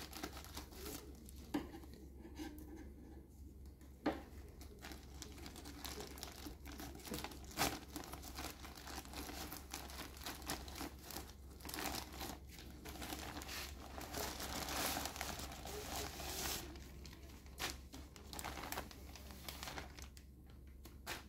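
Plastic mailing bag being cut with scissors and torn open by hand: continuous crinkling and rustling with a few sharp clicks, building to a denser stretch of tearing and crinkling about two thirds of the way through.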